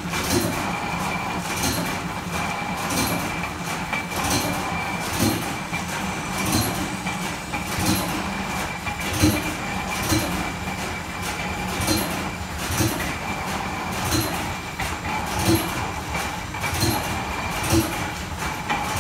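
Antique flat-belt-driven engine lathe running while turning a steel boring bar: a steady mechanical hum with a thin high tone over it and a regular click about every two-thirds of a second.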